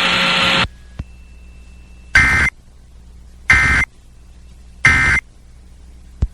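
Emergency Alert System end-of-message data bursts: three short, harsh digital squawks about 1.3 s apart. Before them a loud hiss cuts off just under a second in.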